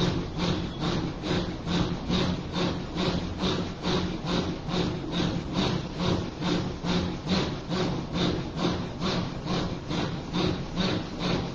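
A man's rhythmic, forceful breathing in breath dhikr, a hoarse rasping breath with a low voiced hum, repeated evenly about two and a half times a second.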